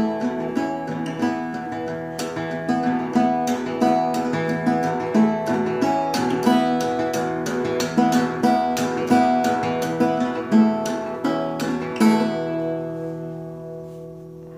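1967 Martin 0-18 acoustic guitar in drop D tuning with a capo at the second fret, playing an instrumental passage of picked notes and strums with no singing. About two seconds before the end a chord is left to ring and fade away.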